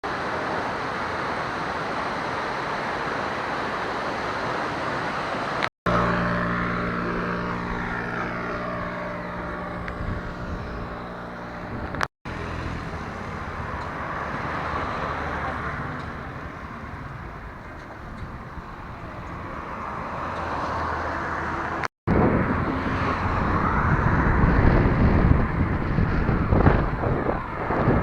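A road vehicle on the move: steady engine and road noise, with a clear engine tone for a few seconds and wind buffeting the microphone near the end. The sound breaks off in short silent cuts between clips.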